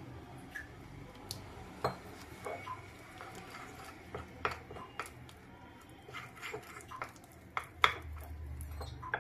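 Metal spoon stirring flour and water into a batter in a glass bowl, with irregular clinks of the spoon against the glass and soft scraping between them. The sharpest clink comes near the end.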